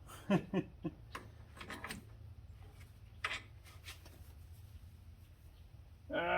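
Scattered light clicks and knocks of metal suspension parts and hand tools being worked into place on an ATV, over a low steady hum, with a short strained grunt near the end.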